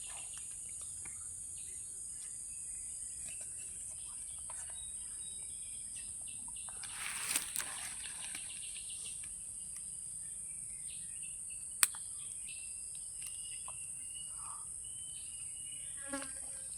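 Steady high-pitched insect drone, with scattered short bird chirps, a brief rustle about seven seconds in and a single sharp click near the twelve-second mark.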